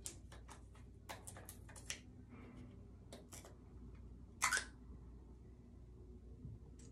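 Small plastic hair-dye bottle being handled and its cap twisted open: a run of light plastic clicks, with a brief louder scrape about four and a half seconds in.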